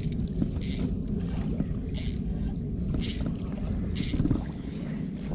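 Steady low rumble of wind on the microphone, with a short high chirp repeating about once a second.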